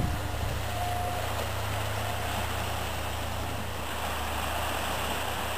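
Steady low rumble in the pause between foghorn blasts, with a brief faint tone from the horn about a second in.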